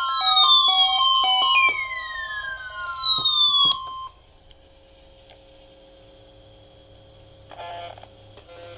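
Electronic tones: a fast repeating pattern of short beeps overlaid by several pitches sliding steadily downward, which cut off about four seconds in. After that comes a faint steady tone with low hum, and a brief burst of noise near the end.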